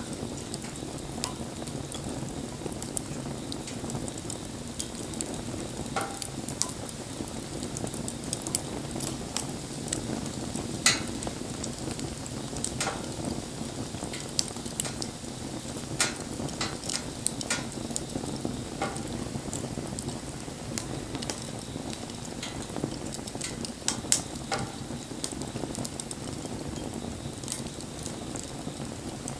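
Wood fire burning with a steady hiss and frequent sharp crackles and pops, a few of them louder than the rest.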